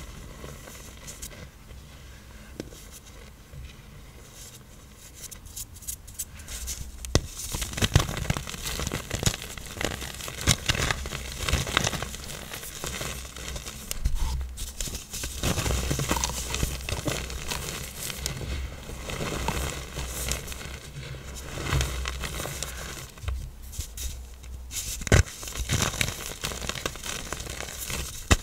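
Hard-pressed black iron oxide blocks being crushed: crunching and crackling as they break into dusty powder. Quieter at first, then dense crunching from about seven seconds in, with several sharp cracks.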